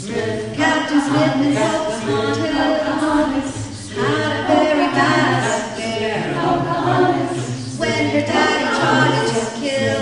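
A cappella choir singing in several parts, with a low bass line running under the upper voices.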